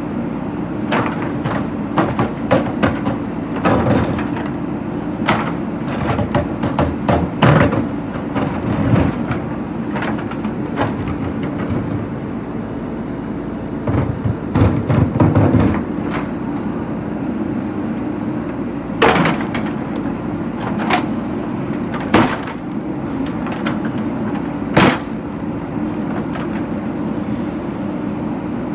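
JCB backhoe loader's diesel engine running steadily under load, with repeated sharp clanks and knocks as the bucket strikes and breaks brick and stone masonry.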